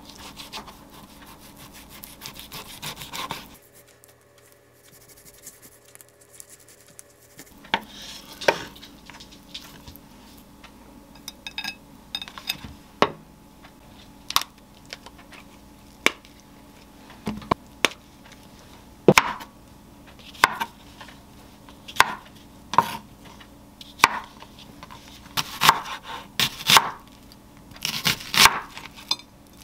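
Chef's knife cutting food on a wooden cutting board: a quick run of slicing strokes at first, a few seconds' pause, then separate knocks of the blade on the board, coming about once a second near the end as mushrooms and an onion are cut.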